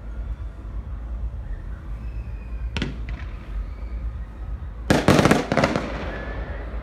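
Fireworks going off: a sharp bang about three seconds in with two quick smaller pops after it, then a louder cluster of bangs trailing into crackle about five seconds in, over a steady low rumble.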